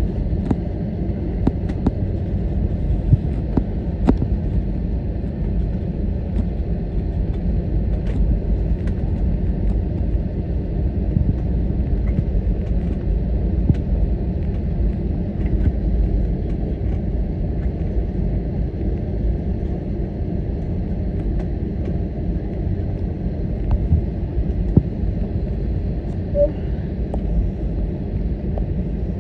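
Steady low rumble in the cabin of an Airbus A321neo taxiing after landing: engines at idle and the aircraft rolling on the taxiway, with a few faint clicks.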